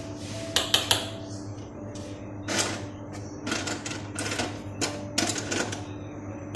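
Irregular sharp clicks and taps with short rustling bursts, a quick cluster about half a second in and more scattered through the rest, over a steady low hum.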